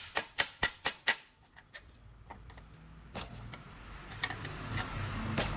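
A quick run of sharp clicks, about four a second, in the first second, then a few scattered single clicks.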